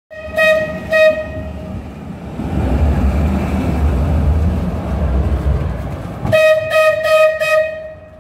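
Tram horn hooting: two short toots, then four more near the end, sounded by a tram blocked by a wrongly parked car. In between, a tram runs past close by with a low rumble.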